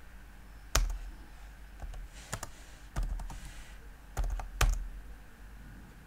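Computer keyboard typing: scattered keystrokes in short runs, with a few louder single key strikes, the sharpest about a second in and near 4.6 s.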